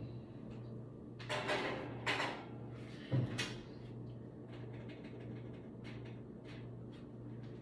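Kitchen oven door being opened and shut and a baking pan set in: a few short clatters between about one and three and a half seconds in, over a steady low hum.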